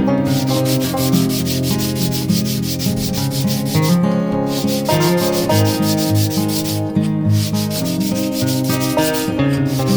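Fast, even back-and-forth abrasive rubbing of a steel blade, as in sanding or honing it into a knife edge, with guitar music playing underneath.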